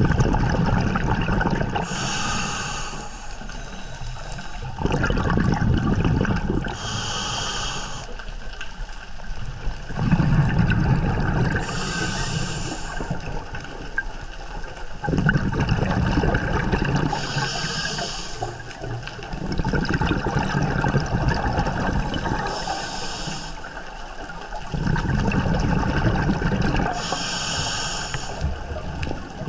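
Scuba breathing heard underwater through a demand regulator: a low rush of exhaled bubbles, then a short hiss on the inhale, in a steady cycle about every five seconds, six breaths in all.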